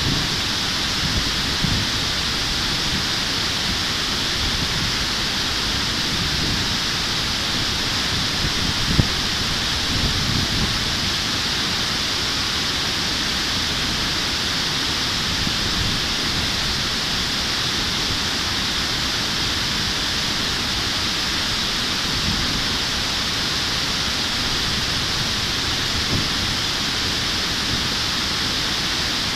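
River water rushing steadily over a concrete weir, a dense even hiss, with an uneven low rumble underneath.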